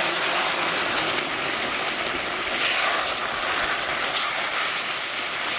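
Seer fish curry, fish pieces with tomato, onion and spice powders, sizzling in hot oil in a large wok, a steady hiss, while a spatula stirs through it.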